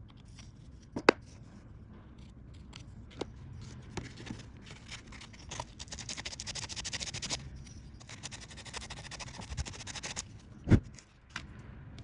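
A small carving tool scraping and clicking against a wooden block, then sandpaper rubbed quickly back and forth over the wood in two long spells. There is a sharp click about a second in and a dull thump near the end.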